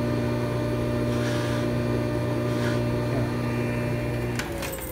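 Bench polishing motor spinning a cloth buffing wheel, giving a ring its final high-gloss polish: a steady hum. About four and a half seconds in there is a click, and the motor's hum falls steadily in pitch as it winds down.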